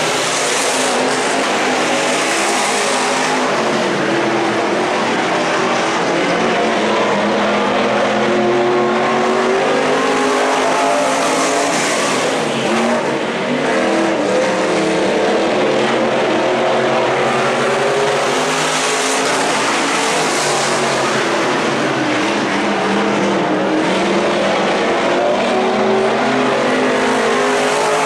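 IMCA Stock Cars' V8 engines racing around a dirt oval, heard from the grandstand, their note rising and falling through the turns.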